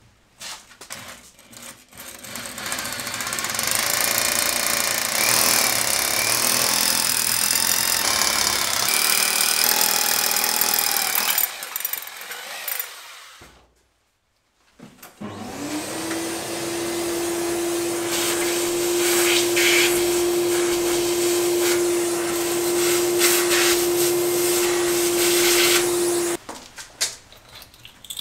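Power drill boring holes into a plastered masonry wall with a long masonry bit, in two long runs of about ten seconds each. The second run opens with the motor's pitch rising as it spins up, then holds a steady tone until it stops suddenly.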